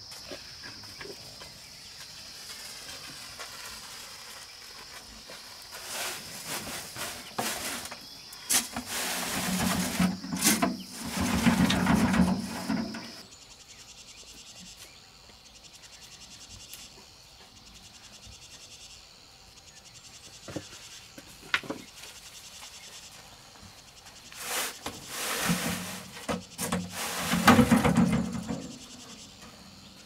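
Steady high insect trill that stops about halfway through, under two bouts of loud rough noise and a few sharp knocks.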